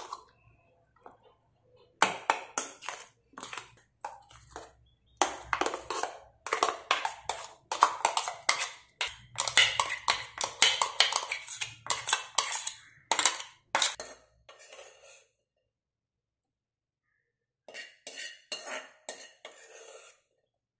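Steel spoon scraping and clinking against a stainless steel mixer-grinder jar and bowl while thick beetroot-curd paste is spooned out, in a quick, busy run of strokes. After a pause of a few seconds there are a few more clinks near the end.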